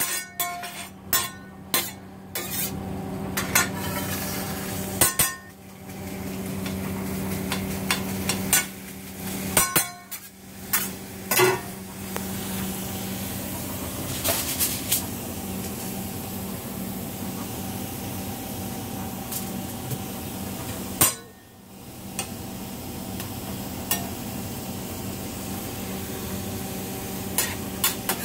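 Scrambled eggs sizzling on a steel flat-top griddle while a metal spatula clanks and scrapes on the plate. The clatter is thickest in the first ten seconds or so and then gives way mostly to the steady sizzle, over a low steady hum.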